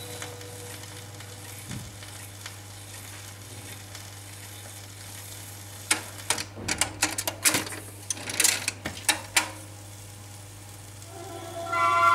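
Surface crackle and hiss from a 78 rpm record turning on a Telefunken record changer after the song has ended, over a steady low hum. About six seconds in, a cluster of clicks and clunks as the changer cycles: the tone arm swings out and the next record drops onto the platter. Near the end, music from the next record begins.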